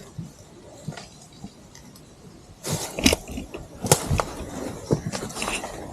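Scattered knocks, clinks and rustling of a person hiking while carrying gear, the loudest cluster about three to four seconds in.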